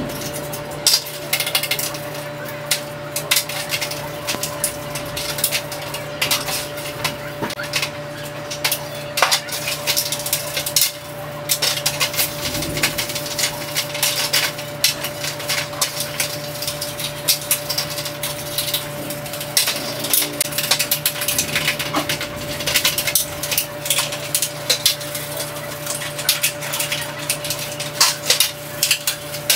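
A toothbrush scrubbing wet, soapy plastic camcorder parts and a circuit board: quick scratchy bristle strokes mixed with clicks and clatters of the parts against a metal tray, over a steady faint hum.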